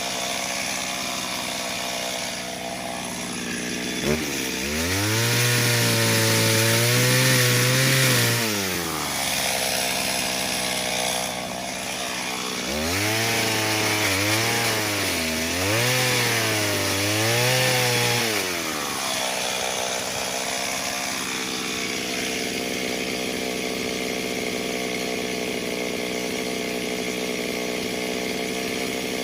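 A two-stroke chainsaw idling, revved up twice for cuts of about four and five seconds each. Its pitch sags and recovers while it bites into the wood, and it drops back to idle between and after the cuts.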